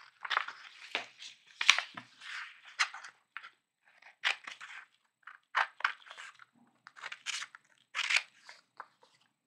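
Scissors cutting through a printed paper sheet: a run of short, crisp snips at an uneven pace.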